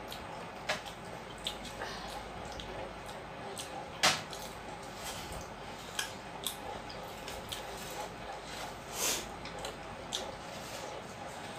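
Eating by hand from metal plates and bowls: small scattered clicks and clinks of fingers, bowls and plates, with one sharp clink about four seconds in.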